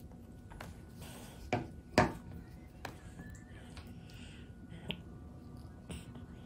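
A few sharp clicks and taps over quiet room tone, the two loudest about a second and a half and two seconds in, with smaller ones later.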